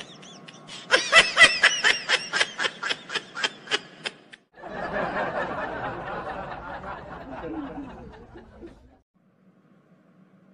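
A cartoon man's laughter: a fast run of high-pitched cackles, about four or five a second, ending about four seconds in. It is followed by about four seconds of a different, noisier sound that stops just before the nine-second mark.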